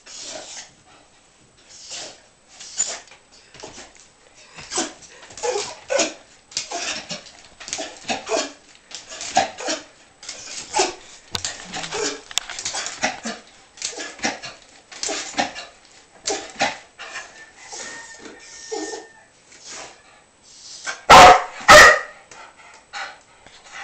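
A dog yipping, whining and barking in short repeated bursts, with two much louder barks about 21 and 22 seconds in: it is begging for a squeaky toy set out of its reach on top of a stove.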